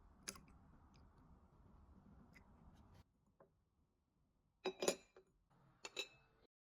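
A few light clicks and clinks, as of small hard objects being handled on a desk. There are scattered faint ticks at first, then two short clusters of sharper, slightly ringing clinks near the end, over a faint low hum.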